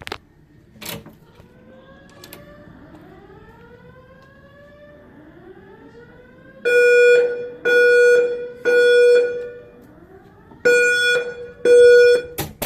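Hotel fire alarm voice evacuation system sounding the temporal-three evacuation tone: three loud half-second horn blasts, a pause, then three more. Before the blasts begin, faint rising sweeping tones overlap one another.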